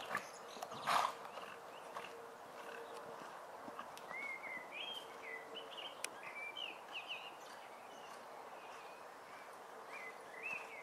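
Small birds chirping in a run of short, quick rising notes through the middle, over steady outdoor background noise, with one short louder sound about a second in.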